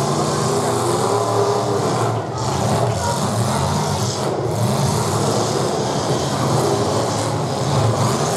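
Several full-size demolition derby cars' engines running hard together, their pitch rising and falling as they revv while shoving into one another.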